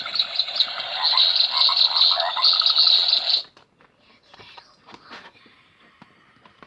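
Sound book's small speaker playing a recorded swamp chorus of croaking frogs and chirping insects, which cuts off abruptly about three and a half seconds in. Faint rustles and clicks follow.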